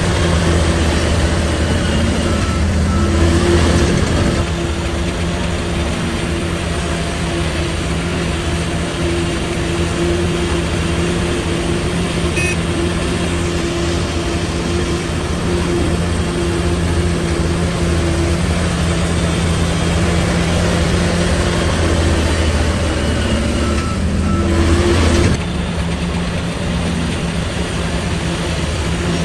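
Heavy diesel engine of earthmoving machinery running steadily. It grows louder for a second or two at about 3 s and again at about 24 s, then drops back suddenly each time.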